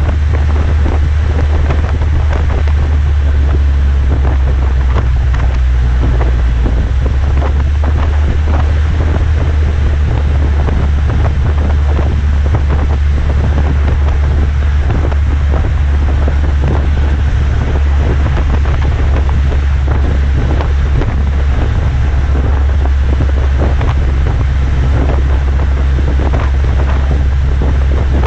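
Chrysler PT Cruiser's 2.4-litre four-cylinder, fitted with a Gibson cat-back exhaust, running steadily with a deep, even exhaust note. Heavy wind buffets the microphone over it, with constant crackling gusts.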